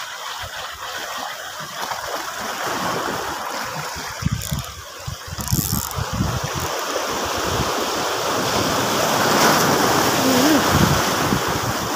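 Small waves washing over a shallow rocky shore, a steady rush of water that grows louder toward the end, with wind buffeting the microphone.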